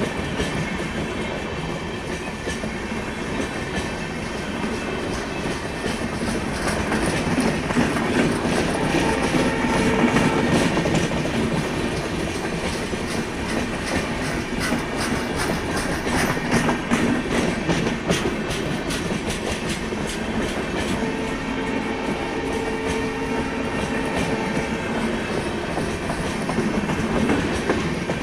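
Train coaches of an empty passenger rake rolling past, the wheels clattering steadily over rail joints. A faint pitched tone comes and goes twice, about eight and about twenty-one seconds in.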